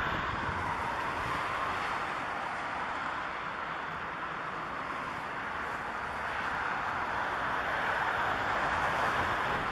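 Four-engined Airbus A340-300's CFM56 jet engines running at low thrust as the airliner taxis: a steady rushing jet noise.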